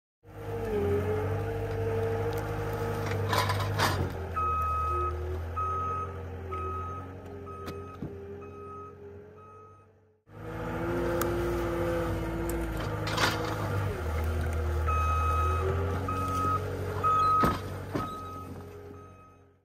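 CAT 226D3 skid steer's diesel engine running under load as its grapple works logs and brush, with the reversing alarm beeping about twice a second while it backs up. A few sharp knocks and cracks of wood are heard, and the sound drops out for a moment about ten seconds in.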